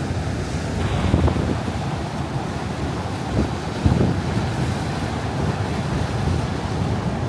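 Steady rushing of Niagara Falls' falling water heard close by, with wind buffeting the microphone in a few short gusts, about a second in and again around four seconds in.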